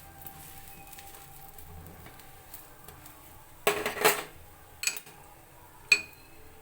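Kitchen utensils and dishes clattering: a short burst of clatter about halfway through, a knock a second later, and one sharp, ringing clink near the end.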